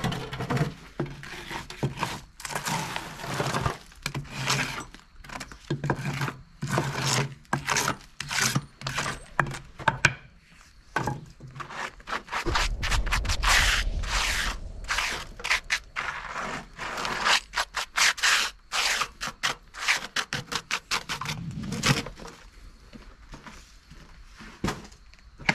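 Ash being scraped out of a wood-burning stove: a long run of irregular, rough scraping strokes, about one to three a second.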